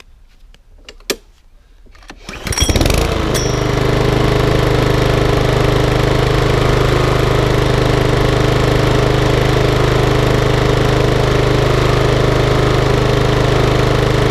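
Tesco petrol rotary lawnmower's small four-stroke engine pull-started: it catches about two and a half seconds in and then runs steadily at a constant speed. It is running again after its leaking primer bulb was replaced and its carburettor cleaned.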